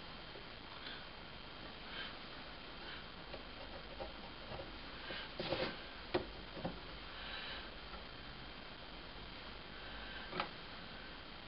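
Quiet pencil-marking at a workbench: short soft scratches of a pencil drawn along a steel rule across a small wooden block, with a few light clicks and taps as the rule and block are handled, the sharpest about halfway through and another near the end.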